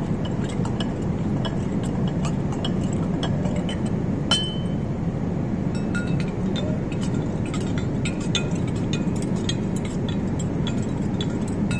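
Metal slide rack clinking against a glass staining jar as the slides are dipped up and down in alcohol to dehydrate them after Pap staining: many light clinks, with one sharper clink about four seconds in, over a steady low background hum.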